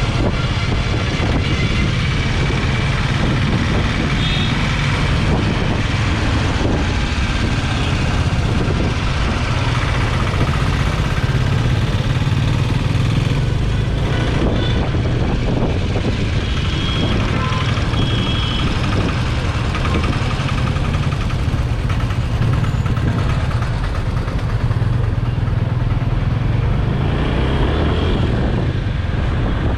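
Motorcycle running at road speed, its engine drone mixed with steady wind rush on the microphone.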